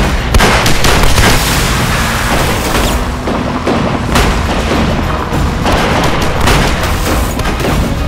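Several gunshots at irregular intervals during a film car chase, over a loud dramatic music score.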